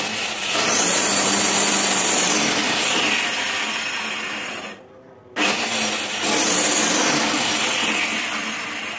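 Electric hand planer running and cutting along the edge of a wooden batten, a steady motor whine under rough cutting noise. It cuts out briefly about halfway through, starts again and begins to die down near the end.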